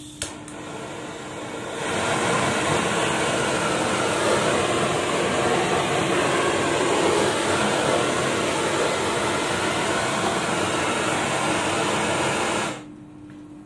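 Handheld gas torch running on LPG: a sharp click as it lights, then the blue flame hissing steadily, turned up and louder about two seconds in. The flame cuts off abruptly about a second before the end.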